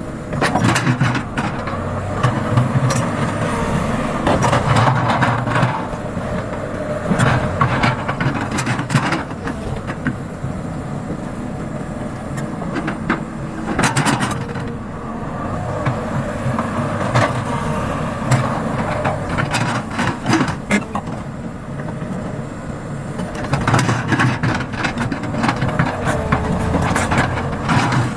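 Sumitomo hydraulic excavator's diesel engine running at work, its level swelling and easing every few seconds, with scattered knocks and clanks throughout.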